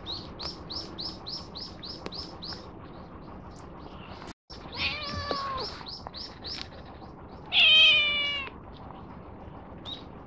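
A cat meowing twice: a shorter meow about five seconds in, then a louder, longer meow near the end. Behind the meows, a bird gives quick, high, repeated chirps.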